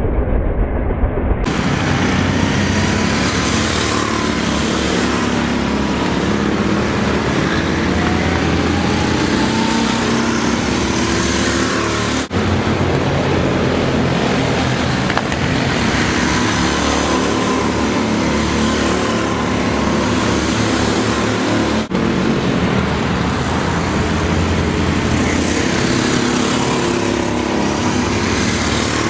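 Go-kart engines running at speed, their pitch rising and falling, over a steady rush of noise, with two very short breaks in the sound.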